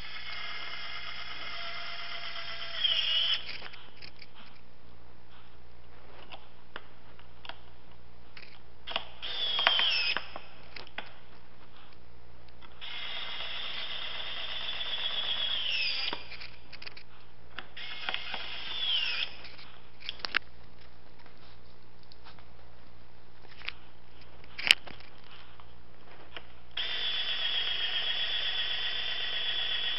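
Cordless electric screwdriver driving screws into a scooter's metal footboard, in five separate runs of a high whine that each wind down in pitch at the end. Short clicks and knocks of handling come between the runs.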